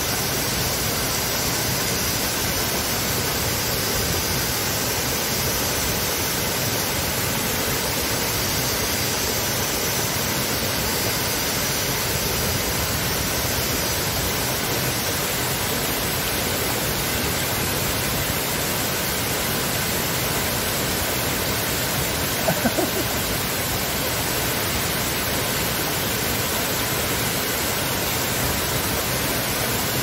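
Waterfall and its rocky cascades rushing steadily, an even roar of falling water at constant loudness. A few brief clicks stand out a little past two-thirds of the way through.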